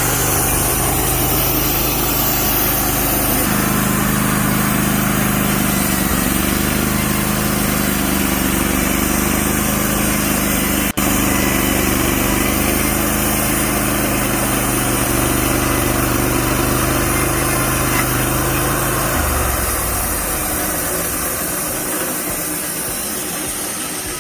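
Portable band sawmill running steadily: its gasoline engine hums with the band blade's noise over it. About twenty seconds in the engine's low hum falls away and the sound fades.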